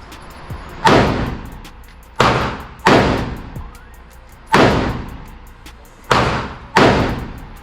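Six AR-15 rifle shots, fired singly at uneven intervals, each with a reverberant tail. Background music plays underneath.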